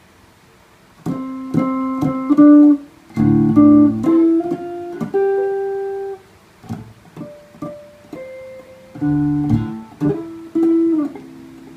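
Electric guitar through an amplifier, its strings plucked unevenly by a small child. Clusters of single notes and chords ring and fade, with a quieter stretch in the middle.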